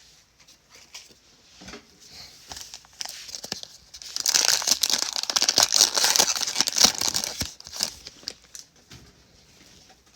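Plastic trading-card pack wrapper being torn open and crinkled in the hands. The crackling is densest from about four to seven and a half seconds in, with lighter rustles and clicks of handled cards before and after.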